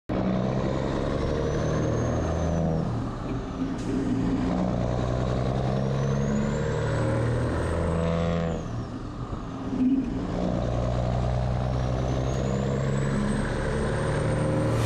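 Semi truck's diesel engine pulling through the gears, heard from the cab: the engine note climbs and drops back at each shift, and a high whistle rises with each of three pulls.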